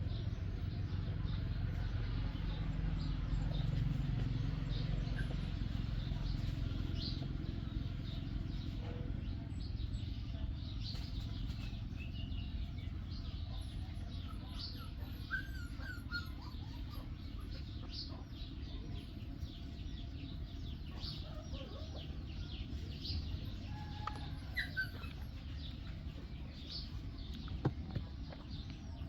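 Outdoor ambience: birds chirp now and then, mostly in the second half, over a steady low rumble and a scatter of faint short clicks.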